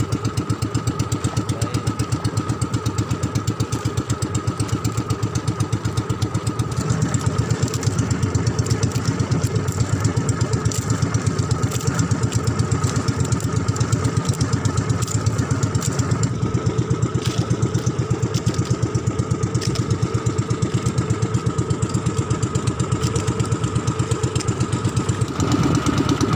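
Motorised outrigger fishing boat's engine running steadily under way, with a rapid even firing pulse and a steady whine above it. The low engine note steps up near the end.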